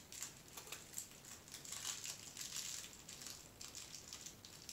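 A dog playing with a crinkle toy that has a plastic, trash-bag-like liner inside: faint, irregular crunchy crinkling, busiest in the middle.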